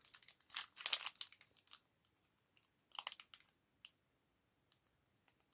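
Packaging of a small wax melt packet being picked at by hand: short scattered crinkles and clicks, busiest in the first two seconds, then a few isolated ticks.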